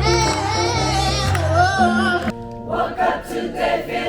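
Women's gospel choir singing: a held melody with vibrato over bass and accompaniment. About two seconds in, the accompaniment cuts off abruptly and the voices continue in a sparser, mostly vocal passage.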